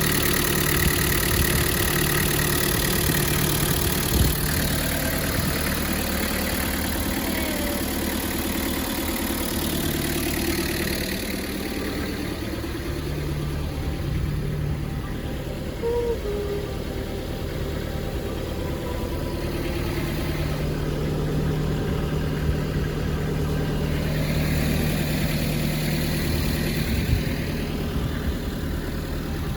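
A vehicle engine running steadily, a continuous low rumble and hum.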